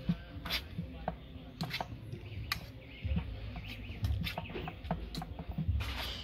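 Fork mashing soft food in a stainless steel bowl: the tines click and scrape against the metal in quick, irregular strokes, with dull low thuds between them.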